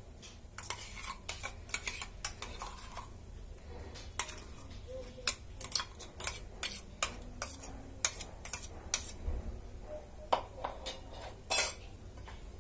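A steel spoon scraping and clicking against a stainless-steel bowl while scooping out garlic and onion paste: a run of short scrapes and clinks at irregular intervals.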